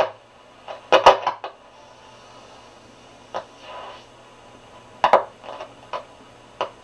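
Grunow 1191 all-wave tube radio's speaker giving a string of short crackling bursts and brief snatches of station sound as the tuning dial is turned, over a low hiss, with a faint hum that dies away in the first second and a half. The crackling between stations is taken by the owner as a sign of dirty contacts on the tuning capacitor plates.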